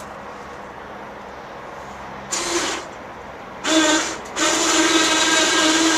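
Winch motor pulling the cable in three bursts, each a steady whine: a short pull about two seconds in, then two longer pulls close together. The last runs on to the end. The winch is hauling a log on its cart up onto a bandsaw mill.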